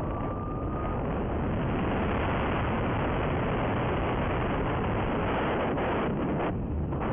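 Steady, dense rush of wind over the microphone of a camera mounted on a radio-controlled model plane in low, fast flight, thinning briefly near the end.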